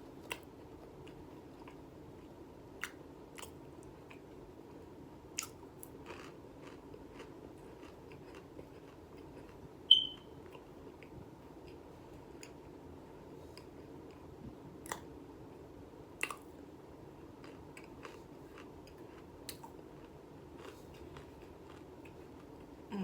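Close-up chewing and biting of crisp baked cornstarch chunks: scattered short crunches and clicks, with one louder sharp click about ten seconds in.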